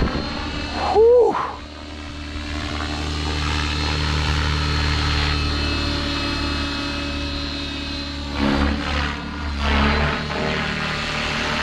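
Align T-Rex 650X electric RC helicopter in flight in stunt mode: a steady motor and rotor whine, with rotor blade noise swelling during manoeuvres near the end. About a second in, a short whistle-like tone glides up and back down and is briefly the loudest sound.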